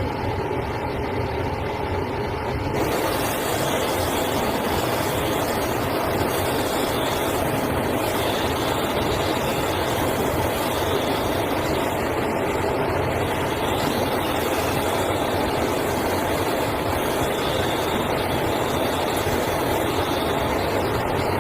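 A workshop machine running steadily with a faint steady whine, becoming louder and hissier about three seconds in and staying so.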